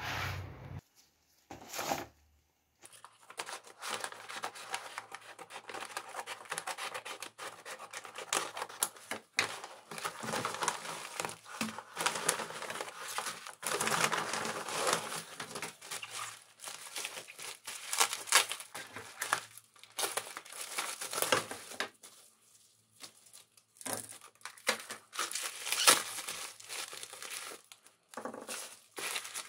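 Bubble wrap and a paper mailer crinkling and tearing as small parts are unwrapped by hand, an irregular crackle with occasional sharp clicks of parts handled on the bench.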